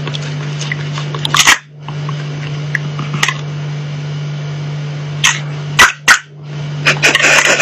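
A steady low mechanical hum with several sharp clicks and knocks over it, a cluster of them near the end.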